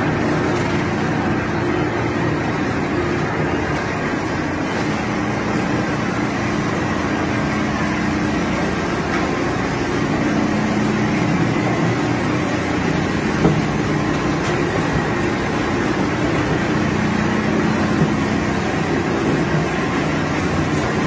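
Sawdust screening machinery running: a steady mechanical drone with a constant low hum.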